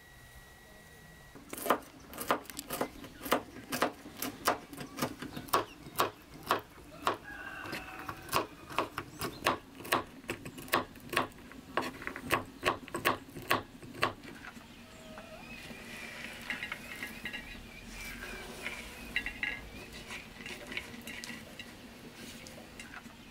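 Knife chopping walnut kernels on a wooden cutting board: a steady run of sharp knocks, about two or three a second, that stops a little past the middle. After it, softer scraping and rustling as the chopped walnuts are swept off the board.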